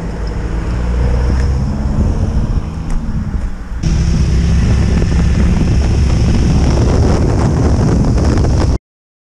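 Steady low engine hum, then about four seconds in an abrupt cut to a louder quad bike engine running under way, with wind buffeting the helmet-mounted microphone. The sound cuts off suddenly near the end.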